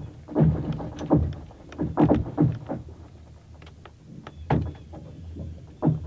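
Lake ice cracking and shifting, an irregular series of sharp cracks and knocks, several falling quickly in pitch. The loudest come about two seconds in, with others near the middle and near the end.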